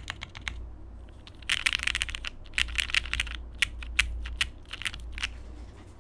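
Typing on a plateless Hex 4b mechanical keyboard with lubed Cherry MX Hyperglide linear switches and PBT keycaps in an aluminium case: a few keystrokes, two fast bursts of typing, then single key presses that stop shortly before the end.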